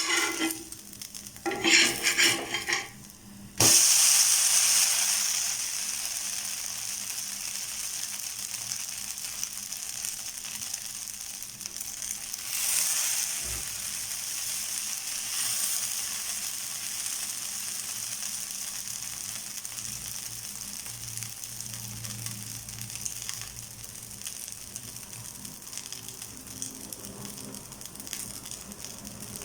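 Dosa cooking on a hot griddle (tawa): a few short scraping, clattering strokes of a utensil, then about three and a half seconds in a sudden loud sizzle that gradually settles into a steady frying sizzle.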